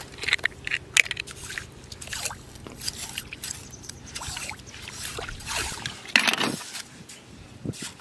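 Water sloshing and splashing in a shallow tide pool as a scallop is swished and rinsed by hand, in irregular short splashes and scrapes, with a louder burst about six seconds in.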